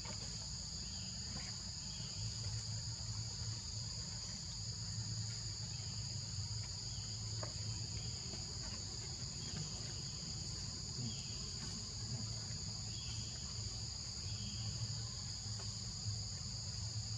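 Steady insect chorus: a constant high-pitched trill in two unbroken pitches, over a low steady hum.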